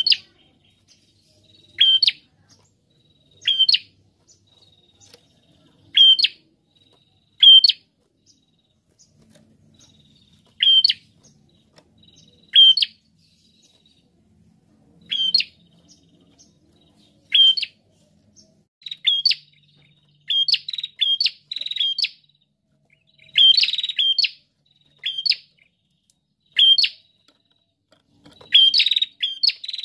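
Caged prenjak (tailorbird) calling with loud, sharp notes that sweep down in pitch, one every second or two at first, then coming faster in quick pairs and runs in the second half.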